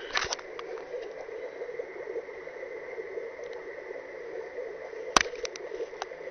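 A few sharp clicks and knocks from handling inside a gravel-floored terrarium, the loudest about five seconds in, over a steady background hum.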